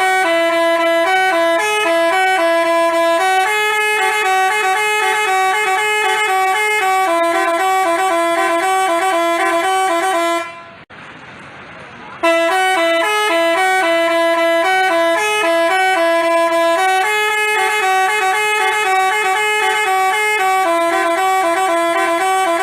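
Basuri 'telolet' multi-tone horn playing a stepping melody of clear, loud notes. The tune runs for about ten seconds, stops briefly, then starts over and plays again.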